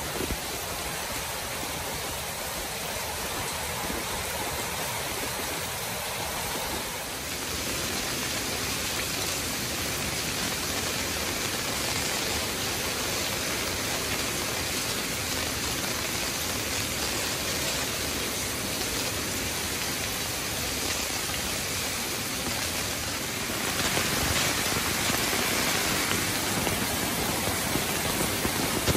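Heavy monsoon rain falling steadily, a dense hiss of drops spattering on wet paving and puddles. It grows louder about 7 seconds in and again about 24 seconds in.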